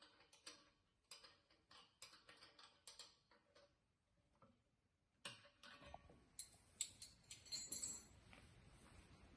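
Faint, irregular light clicks and knocks, several a second. A louder cluster of knocks comes about five seconds in, and a faint steady hiss sets in beneath them.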